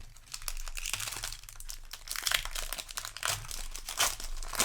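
Foil wrapper of a Magic: The Gathering Jumpstart booster pack crinkling as it is handled and opened, a dense run of irregular crackles.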